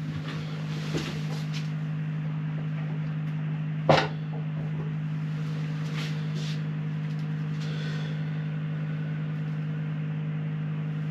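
A steady low machine hum, with a sharp knock about four seconds in and a few fainter clicks.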